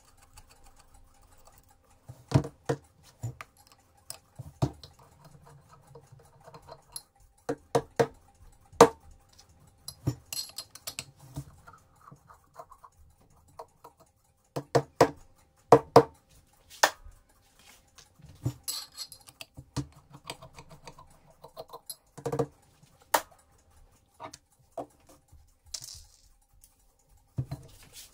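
Nut driver working small bolts out inside the end of a heavy metal pipe housing: irregular clicks, scrapes and metallic taps of the tool against the nuts and tube wall, with small nuts knocking down on cardboard.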